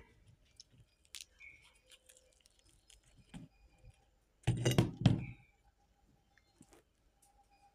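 A hand handling crispy fried flour vadas on a plate: scattered small crackles and taps, with a louder crackling rustle about four and a half seconds in.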